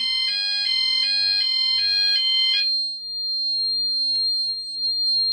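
Apollo/Hochiki ESP addressable fire alarm sounders in alarm after a manual call point is activated for a test: a stepped, chime-like run of electronic tones over a steady high-pitched alarm tone. The chime stops about two and a half seconds in, leaving the steady tone, with a faint click near the middle.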